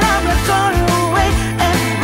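Background music: an upbeat Christmas-style song with jingle bells, a sung melody and a steady beat.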